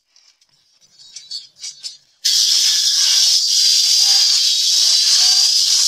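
Faint handling clicks and rustles. Then, about two seconds in, an angle grinder fitted with a chainsaw bar and chain starts suddenly and runs steadily, sawing into a log with a high-pitched whine over a loud hiss.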